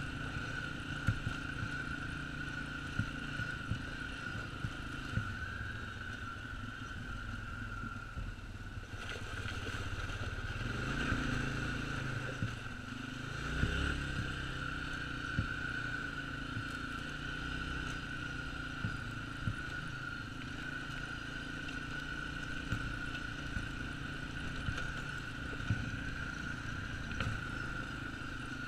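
Can-Am Outlander 400 ATV's engine running steadily as the quad travels over a rough track, with a steady high whine and scattered knocks and rattles. The engine note rises briefly about halfway through.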